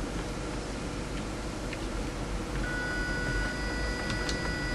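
Arduino-driven PC case fan running with a steady whir, its high motor whine dropping out and coming back about two and a half seconds in, with the low hum growing stronger as the fan speed changes. A few faint keyboard key clicks.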